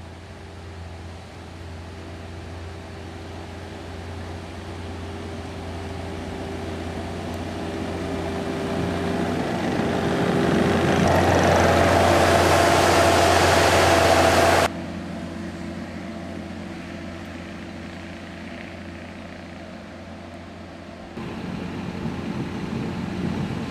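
Diesel engine of a compact track loader running as the machine comes closer, growing steadily louder. It is loudest for a few seconds midway, close to its rubber tracks, then drops suddenly, and grows louder again near the end as the loader pushes snow.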